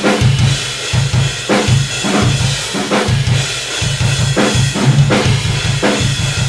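Drum kit playing a beat: steady low bass-drum thumps, sharp snare strikes and a continuous cymbal wash.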